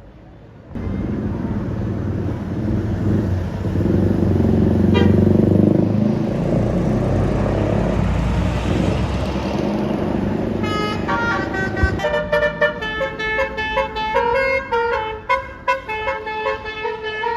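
A large bus's engine running loud as it passes close by. About eleven seconds in its Basuri telolet horn starts playing a fast multi-note tune that changes note several times a second.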